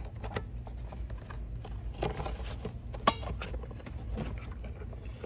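Handling noises of a USB cable being pushed behind car dashboard trim: light plastic clicks and rattles, with one sharper click about three seconds in, over a low steady hum.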